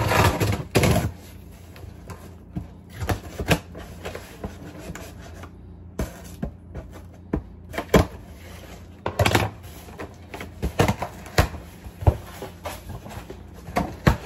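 Irregular clicks, knocks and taps of items and packaging being handled and set down on a kitchen counter.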